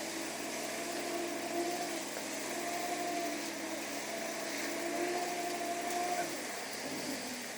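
Engine of concrete road-building machinery running steadily with a slightly wavering pitch, which drops away near the end.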